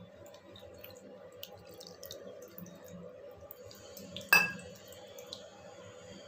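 Hand mixing flour, salt and water into dough in a stainless steel bowl: faint soft rubbing and wet squishing with small clicks, and one sharp ringing clink of the steel bowl about four seconds in.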